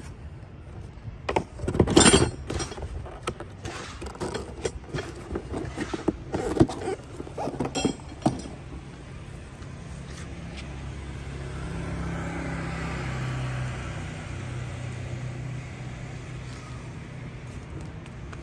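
A cardboard box and loose metal parts handled, with knocks, clinks and rustling over the first eight seconds or so. Then a steady vehicle engine drone swells to its loudest about halfway through and slowly fades.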